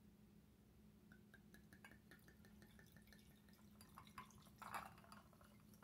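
White wine being poured from a bottle into a wine glass: faint dripping and trickling with a run of quick light ticks, then a louder burst of pouring just before the end.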